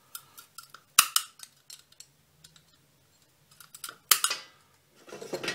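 Pruning secateurs snipping through dormant plum twigs to cut scion wood: two sharp snips, about a second in and about four seconds in, with small clicks of the blades and handling in between.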